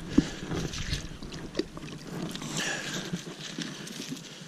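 A wooden stick being worked loose and pulled up out of shallow, icy pond water: scraping and rustling with light sloshing and a few sharp clicks.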